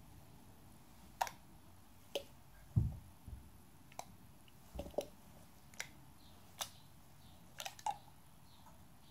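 Slime being squeezed and pulled in the hands, giving about ten irregular sharp pops and clicks, with one dull low thump about three seconds in.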